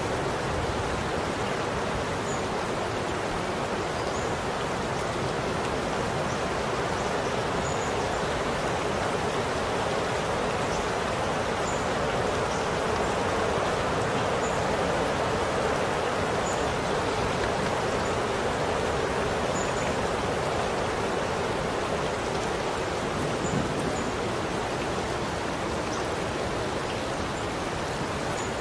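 Steady rain falling, an even hiss with faint scattered high ticks.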